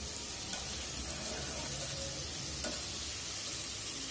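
Pabda fish curry simmering in a metal karahi with a steady sizzling hiss, and a metal spatula clicking lightly against the pan twice, about half a second in and again past the middle.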